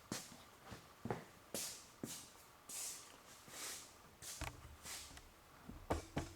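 Faint, intermittent rustling and light clicks of hands handling small parts, a short scrape or click every half second or so, with a couple of duller knocks near the end.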